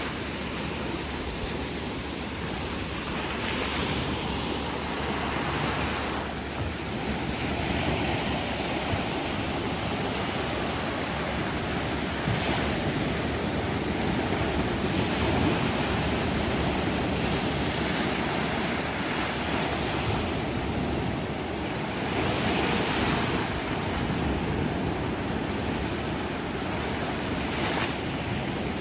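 Sea waves washing onto the shore, a steady wash with softer surges every few seconds, with some wind on the microphone.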